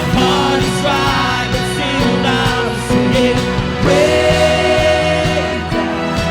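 Live worship band playing contemporary Christian praise music, with singing over sustained keyboard chords, bass and drums.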